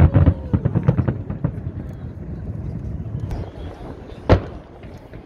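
Aerial fireworks bursting: a rapid run of bangs and crackles over the first second and a half, then a quieter stretch broken by one loud boom about four seconds in.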